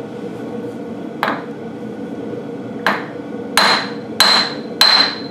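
Hammer blows on the threaded end of a John Deere 350B final drive's bottom shaft, driving the still-tight shaft out of its bearings: five metal-on-metal strikes, a light one about a second in, then four coming faster near the end, the last three loudest with a short metallic ring.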